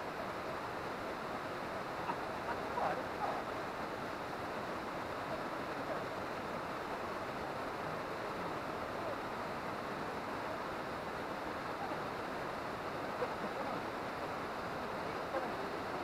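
Steady rush of a tall waterfall pouring into its plunge pool, with a few faint short sounds about two to three seconds in.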